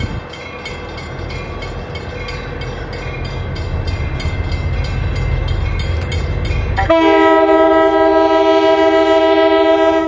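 Commuter train approaching with a steady rumble. About seven seconds in, its horn sounds a chord of several notes, held for about three seconds before it cuts off.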